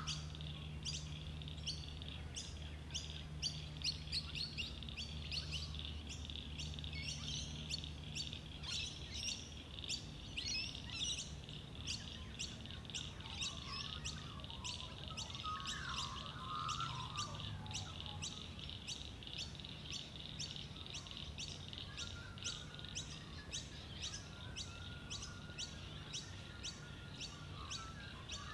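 Pacific black duck ducklings peeping, a steady run of short high peeps repeating about two to three times a second.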